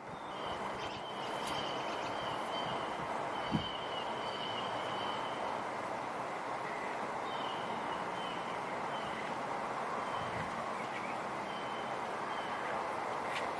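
Steady wind rushing, with a bird singing short repeated high trills over it on and off. A single sharp click about three and a half seconds in.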